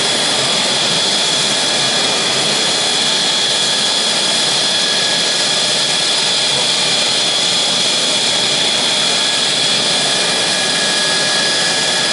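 Mitsubishi F-2 fighter's jet engine, a General Electric F110-series turbofan, running steadily on the ground during an engine run-up: an even roar with a high, unchanging whine over it.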